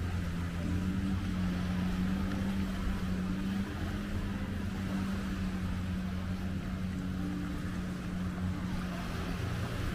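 Long-tail boat's car engine running steadily, its pitch shifting slightly a few times, with a steady hiss over it.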